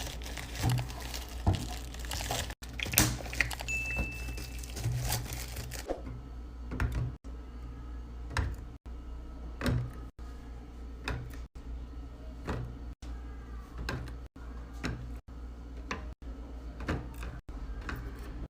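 Light clicks, taps and knocks of food containers and packaging being handled and set down while restocking a refrigerator, over a low steady hum. The sound breaks off abruptly every second or so.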